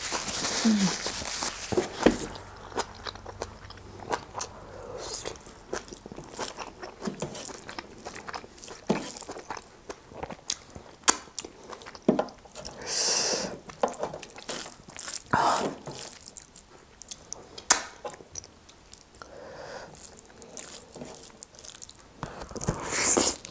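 Close-miked sounds of eating pork trotters and rice by hand: chewing and biting with many sharp wet mouth clicks and a few louder noisy bursts. Fingers also mix rice on a metal plate.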